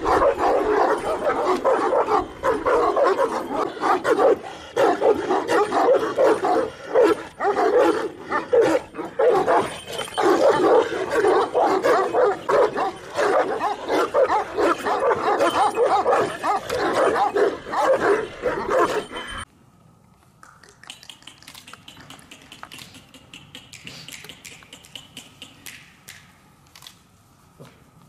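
A pack of Kangal dogs barking together, many voices overlapping in a dense, continuous chorus. It cuts off suddenly about two-thirds of the way through, leaving only faint ticks and rustles.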